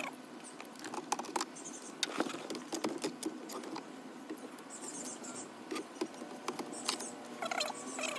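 Plastic dashboard trim clips and panel being handled, pried and fitted: irregular small clicks and scratchy rubbing of plastic.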